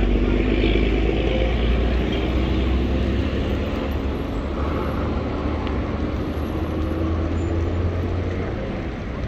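Road traffic: a motor vehicle engine's steady low hum over road noise, slowly fading.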